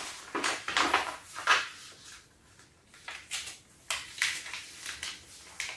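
Square sheets of paper being folded and creased by hand on a tabletop: a string of short crisp rustles and scrapes, with a brief pause a little past two seconds in.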